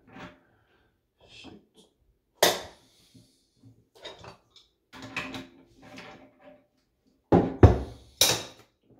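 Scattered knocks and clunks of plumbing fittings and a wrench being handled at a toilet's water supply connection. A loud knock comes about two and a half seconds in, lighter taps follow, and a cluster of three loud clunks comes near the end.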